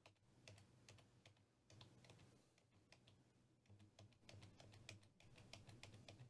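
Near silence with faint, scattered light clicks, more of them after about four seconds in.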